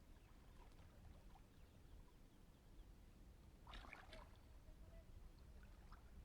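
Faint river water lapping over a low, steady rumble, with one short, louder splash about four seconds in.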